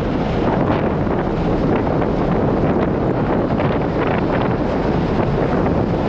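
Wind blowing hard across the microphone on the open deck of a moving ferry: a steady, loud rushing noise with no let-up.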